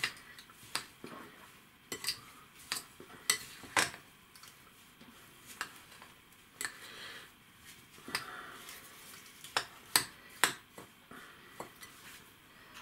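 Metal spoon stirring and scraping crumbly, oil-coated semolina in a glass bowl, with irregular sharp clinks of the spoon against the glass.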